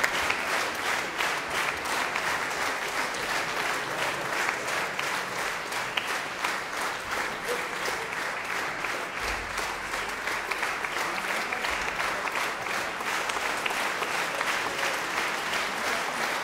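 Large concert-hall audience applauding, many hands clapping in a dense, steady stream.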